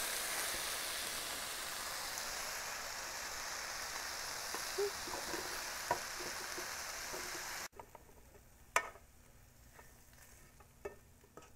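Sautéed vegetables sizzling steadily in a frying pan, cutting off abruptly about eight seconds in. After that a few light clicks and knocks as the cooked mixture is spooned from the pan into a blender jar.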